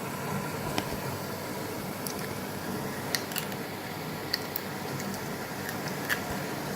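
Gorenje WA63131 washing machine in the first rinse of a synthetics cycle: a steady low motor hum, with a few irregular light clicks and ticks from the drum and its load.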